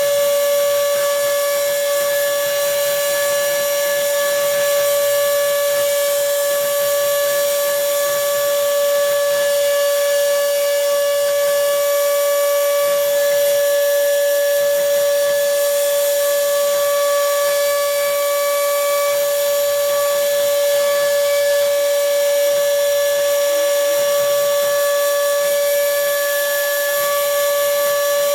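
Homemade CNC router milling a printed circuit board: the spindle motor runs at a steady speed with a constant high-pitched whine and a hiss of cutting noise.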